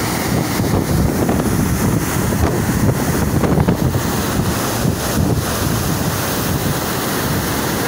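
High-pressure water released through barrage gates, rushing and churning in a loud, steady roar, with wind buffeting the microphone.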